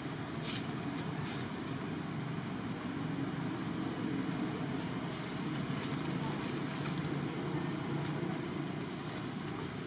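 Indistinct murmur of distant human voices over a steady outdoor background, with a thin, steady high tone.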